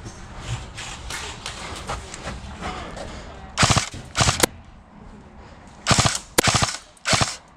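Airsoft guns firing rapid bursts of shots. Fainter, scattered shots come first, then loud bursts about halfway through and again near the end.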